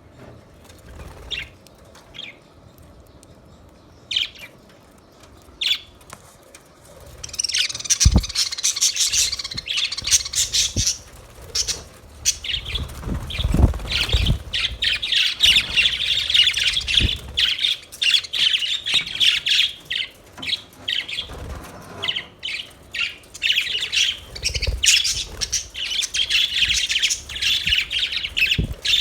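Budgerigars chirping and chattering. There are a few scattered calls at first, then dense, continuous high chatter from about seven seconds in, with a few short low thumps among it.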